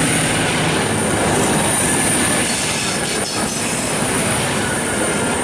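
V/Line VLocity diesel railcar set passing close by: a steady, loud rush of wheels on rail and running gear, with a few wheel clicks over the rails about three seconds in as the last car goes by.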